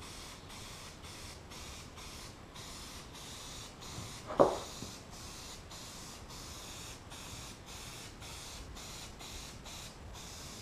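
Rust-Oleum tan spray paint hissing from an aerosol can in short, quick strokes, about two or three a second, as a base coat goes on. A single sharp knock sounds about four seconds in.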